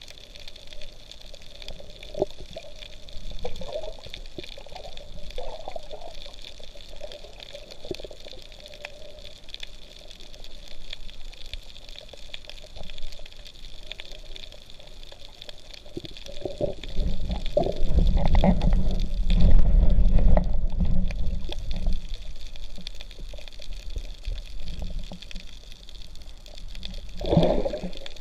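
Muffled underwater sound picked up by a GoPro in its waterproof housing: water swishing and gurgling against the case, with a louder low rushing rumble for several seconds past the middle and a short swell near the end.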